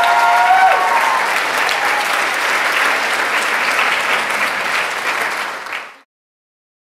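Audience applauding at the end of a musical number, many hands clapping; the singers' last held notes end about a second in. The sound cuts off abruptly about six seconds in.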